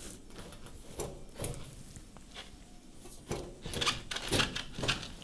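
Side panel of a range cooker being pushed back onto its locating lugs: a few light knocks and scrapes, most of them in the last two seconds.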